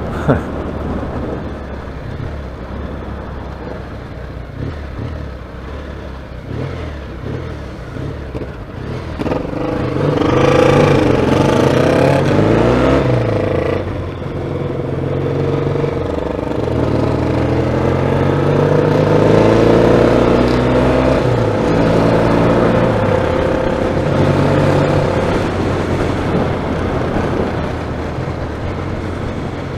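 Classic motorcycle engine heard from the rider's helmet microphone while riding. It runs fairly quietly for the first nine seconds, then revs climb as it accelerates through the gears, drop away briefly, and climb again before settling into a steady cruise.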